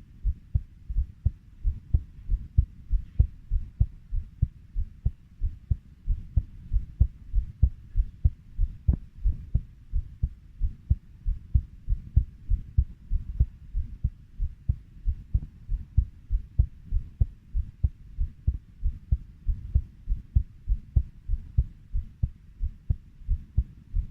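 Heartbeat at a steady 90 beats a minute: low, deep lub-dub double thumps repeating evenly with no change in pace.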